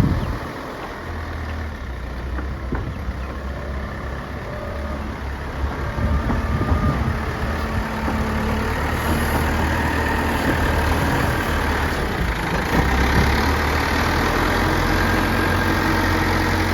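Diesel engine of a front-bucket earthmoving machine running, getting louder about six seconds in and holding there, as if working under load.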